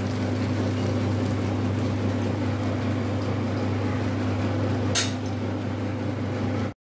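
A steady low motor hum, with one short clink about five seconds in; the sound cuts off abruptly near the end.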